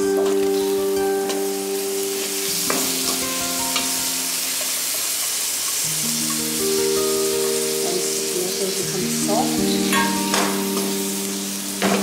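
Chopped tomatoes sizzling as they are stirred into hot oil and spiced onion masala in a metal pan, with a metal ladle scraping and knocking against the pan a few times.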